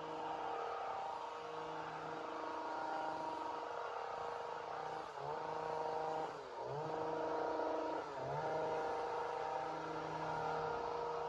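Two-stroke chainsaw running at high speed. Its engine note drops briefly and picks back up three times, a little after five, six and a half and eight seconds in.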